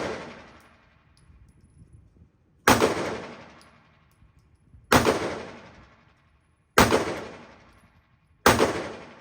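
Four handgun shots about two seconds apart, each followed by a short echoing decay.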